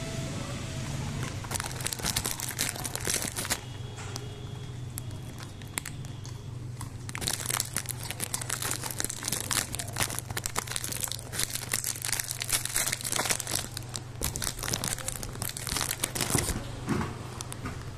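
A dog chewing and crunching dry food in several crackly bouts, with a quieter stretch a few seconds in and the longest bout in the middle.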